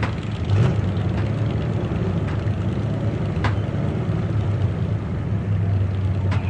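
Sports car engine running steadily with a low rumble and no revving, with a few sharp clicks scattered through it.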